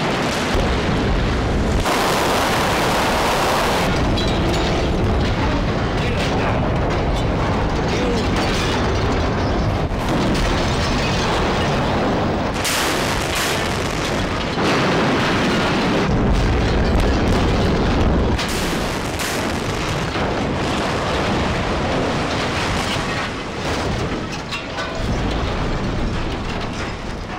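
Explosive demolition of steel lattice shipyard cranes: cutting charges going off and the cranes crashing down, a long, loud rumble of blasts and falling steel that changes abruptly several times.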